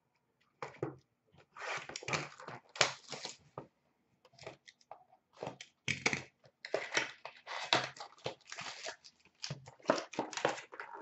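Packaging being torn and crinkled in the hands as a trading card box is unwrapped and the foil pack inside ripped open: crackling, rustling tearing in irregular bursts with short pauses.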